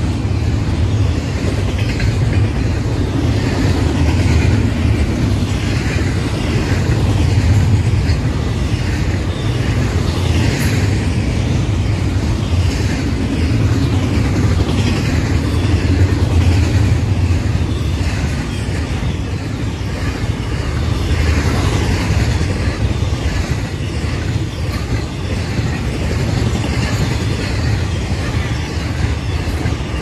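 Double-stack intermodal train's loaded well cars rolling past at close range: a steady, loud rumble of steel wheels on the rails.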